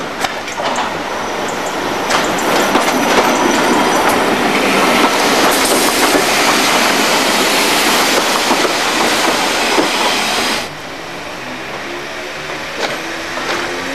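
Class 504 electric multiple unit passing close, its wheels clicking over the rail joints under a loud rushing noise. This cuts off suddenly about ten seconds in, and then another unit comes in more quietly, the whine of its traction motors rising in pitch near the end.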